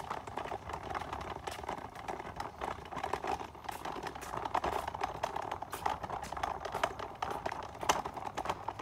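Footsteps on brick paving: a steady run of light, irregular clicks and scuffs as the walker moves along.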